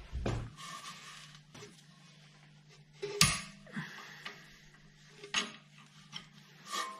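Steel combination spanners clinking against each other and the brake caliper bolts as they are fitted and turned, with one sharp clink about three seconds in and lighter ones later.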